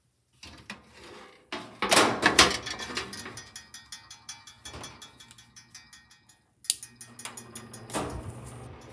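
Small Deco Breeze turtle figurine fan running with a fast, even metallic ticking rattle from its wire-and-metal body. Loud knocks and clatter come about two seconds in and again near the end.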